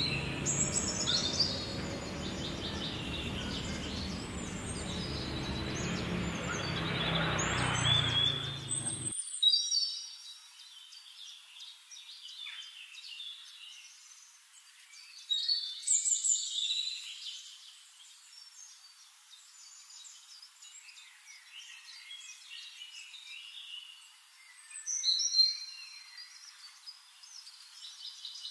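Small birds chirping and twittering throughout, with louder bursts of calls at intervals. For the first nine seconds a rushing noise runs beneath them, swelling and then cutting off suddenly.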